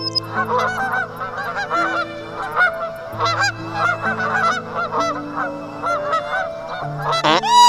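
A flock of birds calling rapidly, many short calls overlapping, over background music with held notes. Near the end a single louder call with a rise and fall breaks in.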